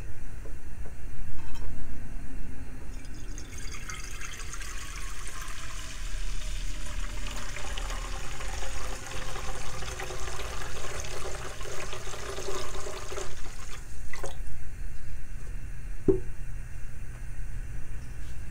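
Kitchen tap running into a cooking pot in a sink for about ten seconds, the splashing carrying a note that slowly drops in pitch. The water stops with a knock, and a second knock follows about two seconds later.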